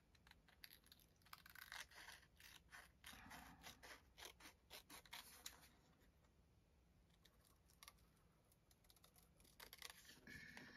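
Small scissors snipping plain brown paper, trimming it around a paper tag: a quick run of faint snips, a pause, then a few more snips near the end.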